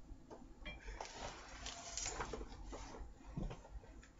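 Faint, irregular rustling with a few soft clicks and knocks: a person shifting in a chair and handling her clothing.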